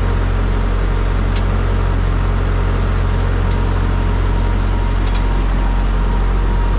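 Heavy truck running with a steady low rumble, and a few faint clicks over it.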